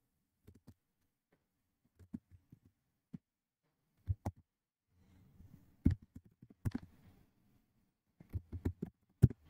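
Computer keyboard keystrokes and mouse clicks: scattered single clicks, growing more frequent from about four seconds in, with a quick run of keystrokes near the end.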